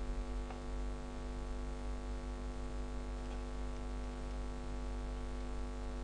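Steady electrical mains hum with a faint hiss, the background noise of the recording setup; nothing else stands out.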